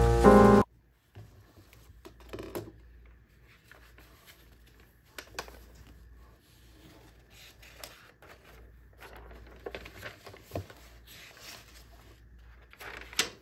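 Intro music cuts off abruptly in the first second. Then come faint, scattered paper rustles and soft handling sounds as sketchbook pages are turned by hand, with a louder rustle near the end.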